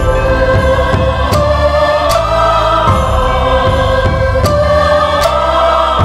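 Background music: sustained choir-like voices over a low bass line, with a soft regular beat.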